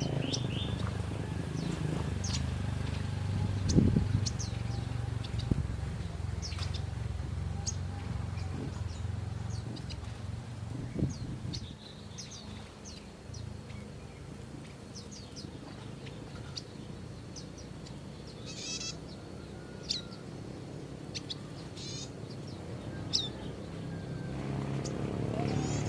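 Prinia (prenjak) birds chirping: scattered short, high chirps over a steady low rumble, with a thump about four seconds in and a smaller one around eleven seconds.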